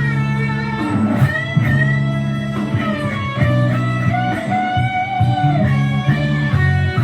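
Electric guitar playing a lead solo, with long held notes that bend up and down in pitch over a steady bass line.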